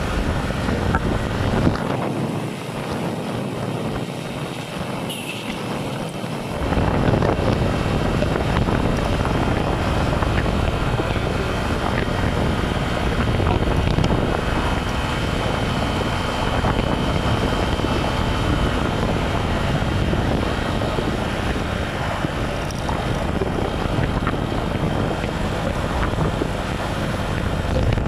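Wind buffeting a handlebar-mounted phone microphone on a moving motorcycle, a continuous loud rushing rumble. The low rumble eases off about two seconds in and comes back strongly about six seconds in.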